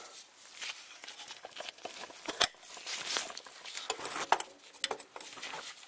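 Irregular rustling, scraping and light clicks of hands working at a truck's spin-on oil filter, which is stuck too tight to turn by hand, with one sharper click about two and a half seconds in.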